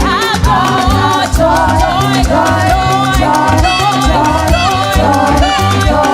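Live church praise music with a steady, danceable drum and bass beat, crisp percussion ticks and a voice singing a wavering, ornamented melody.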